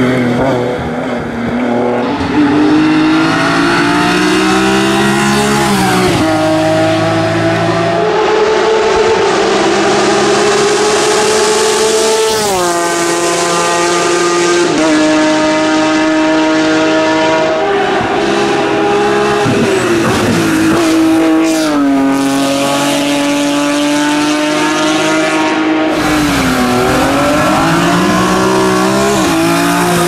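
BMW S54 3.2-litre straight-six of an E36 M3 hillclimb race car at full throttle, the engine note climbing through each gear and dropping sharply at each shift, several times over, as the car runs past.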